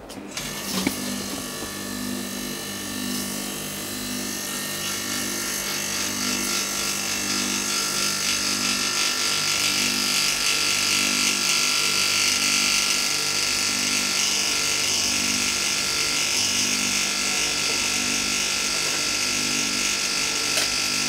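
Mitsubishi rotary compressor, rigged as a vacuum pump, switching on and running with a steady buzzing hum that throbs slowly and evenly, under a hiss that grows over the first several seconds as it draws a vacuum on a sealed double-glazed fridge window.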